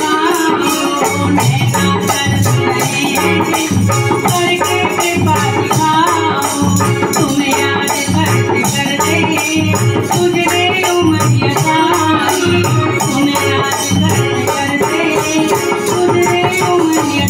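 Live Sai bhajan music: a wavering melody over sustained chords, with a steady, quick shaker-like rattle keeping the beat.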